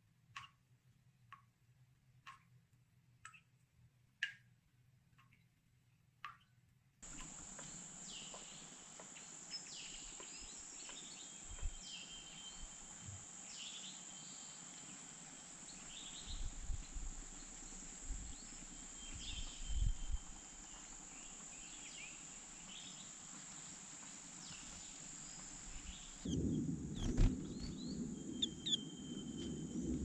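Faint outdoor ambience: a few soft ticks, then from about seven seconds in a steady high hiss with scattered short bird chirps. A louder low rumble joins near the end.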